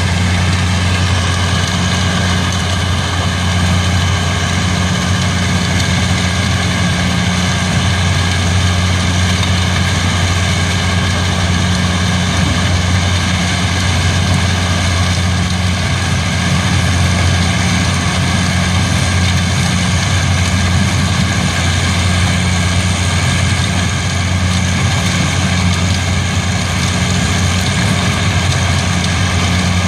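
Diesel-powered mobile crushing and screening plant running: a loud, constant deep drone of engines and machinery, steady throughout.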